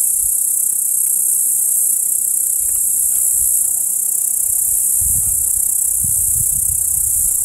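Steady, dense high-pitched chirring of grasshoppers and bush-crickets in a summer field. A low rumble joins about five seconds in.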